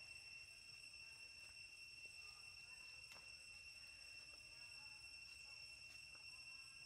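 Faint, steady high-pitched drone of insects in the forest, unbroken throughout, with a few soft clicks.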